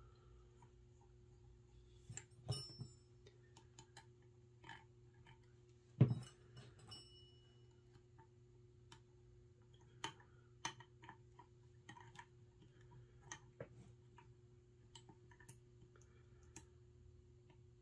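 Scattered light clicks and taps of small metal parts and tools being handled while reassembling a semi-automatic Marauder air rifle, with two slightly louder knocks about two and a half and six seconds in, over a steady low hum.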